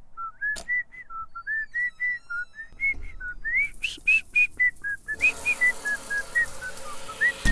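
A person whistling a tune, a quick run of short notes with small slides between them, climbing to its highest notes about halfway through and then settling lower. A faint background hiss comes in about five seconds in.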